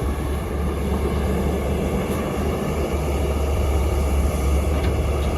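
Steady low rumble of heavy diesel machinery and vehicles running on a road construction site.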